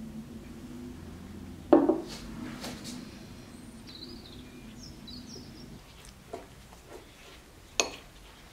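Plastic spatula clinking and scraping against a glass bowl while powdered sugar and lemon juice are stirred into a glaze, with a sharp knock about two seconds in and another near the end. Birds chirp faintly in the background.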